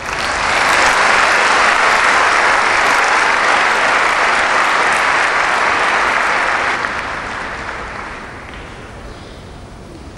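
Large audience applauding, loud for about seven seconds and then dying away.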